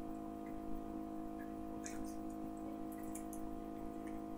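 A few faint light clicks from small make-up items being handled and passed between hands, over a steady electrical-sounding hum.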